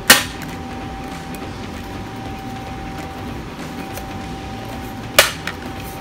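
Two sharp clicks from the plastic case of a Sanwa YX360TRF analog multimeter being handled, one right at the start and one about five seconds in. Under them, steady room noise and a faint steady tone.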